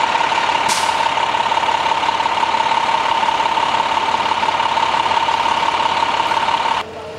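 Emergency vehicles idling close by: a steady engine hiss with a high, constant whine, and a short hiss about a second in. The sound cuts off suddenly near the end.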